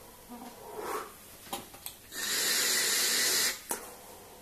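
A vaper taking a hit on a Wismec Reux rebuildable tank atomizer: soft breathing, then a steady hiss of air lasting just over a second, with a couple of short clicks just before it.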